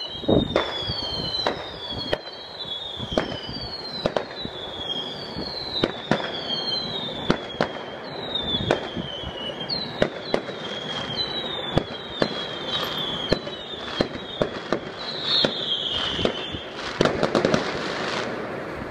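Fireworks display heard from a distance: a steady run of bangs and pops, with a high whistle falling in pitch about every second or so. A dense burst of crackling bangs comes near the end.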